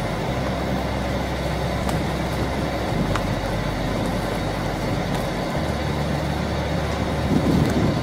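Combine harvester running as it cuts soybeans: a steady machine noise, its low engine hum shifting in pitch about half a second in and again past the five-second mark.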